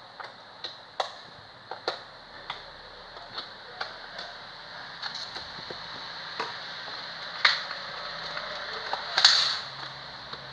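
Slime being poked and squeezed by hand, making sharp irregular clicks and pops, with a louder, longer squelch about nine seconds in.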